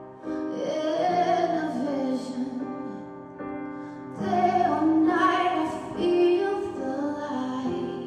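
Song performance: a female voice sings long, wavering held notes over steady sustained instrumental chords, in two sung phrases with a short gap around the middle.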